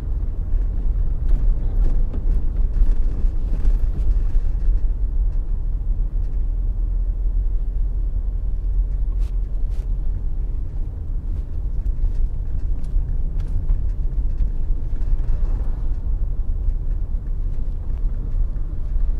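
A car driving along a road: a steady low rumble of engine and tyre noise.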